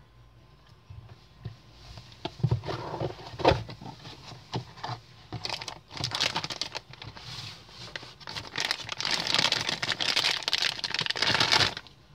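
A cardboard box being opened and handled, with a few knocks and rustles and one sharp knock, then a plastic wrapping bag crinkling for several seconds while it is pulled open; the crinkling stops suddenly near the end.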